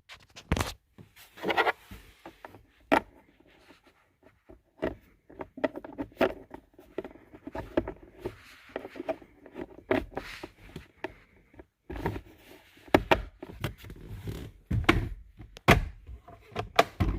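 Plastic cabin air filter cover and trim parts being handled and refitted behind the glovebox: a string of sharp clicks and knocks with scraping and rubbing between them, as the fittings are pushed in and turned clockwise.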